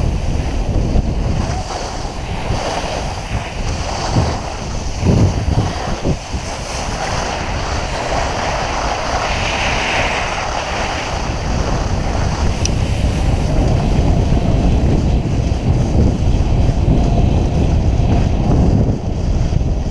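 Wind buffeting the camera microphone during a downhill ski run, over the steady hiss and scrape of skis sliding on granular snow.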